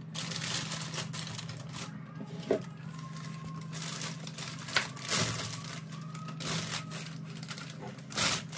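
Thin plastic carry bag crinkling and rustling as okra pods are pulled out of it and set down on the countertop, with a few sharp taps. A steady low hum runs underneath.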